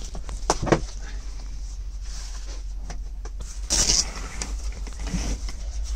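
Knocks and clicks of hands working on sleeper-cab interior trim, sharpest about half a second in, then a brief swish of the heavy sleeper curtain fabric near four seconds in, over a steady low hum.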